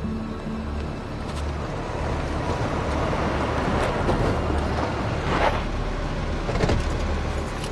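A car drives up and pulls to a stop, its engine and tyre noise growing louder over the first few seconds, with a couple of short sharp noises as it stops.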